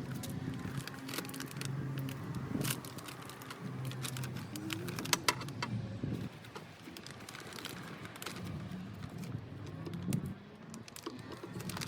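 Small hard clicks, knocks and rattles of hand tools and plastic trim being handled on a car door, scattered irregularly over a steady low hum.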